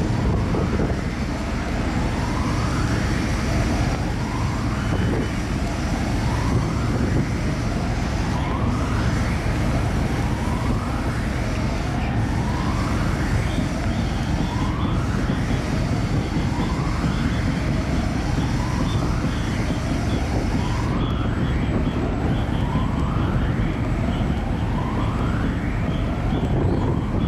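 A siren-like wail that rises in pitch over and over, about once every two seconds, over a steady low rumble from the car ferry's engines and wind.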